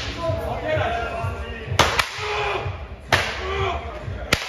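Three sharp cracks of a jiu-jitsu belt lashed across a person's back, roughly a second and a quarter apart, during a belt-whipping promotion gauntlet.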